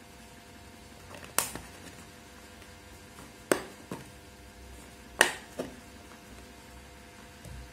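Three sharp knocks, each followed by a fainter one, as a glass of milk and a milk carton with a plastic screw cap are handled and set down.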